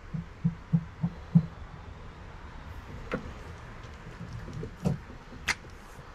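A quick run of about six soft, low thumps in the first second and a half, then a few scattered sharp clicks and taps.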